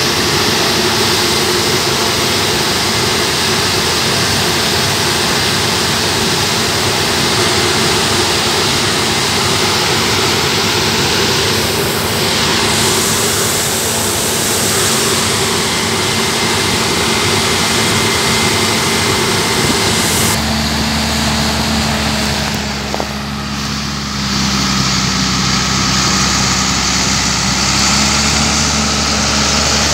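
A Claas combine harvester running while unloading grain through its auger, a steady mechanical din. About two-thirds of the way in the sound changes abruptly to the steadier, lower hum of a John Deere 8210 tractor's diesel engine.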